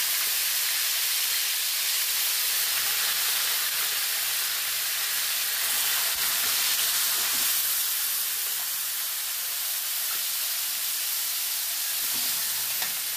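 Boiled pork chunks, potatoes and carrots sizzling in a hot wok, a steady hiss, with a few faint knocks of a metal spoon stirring.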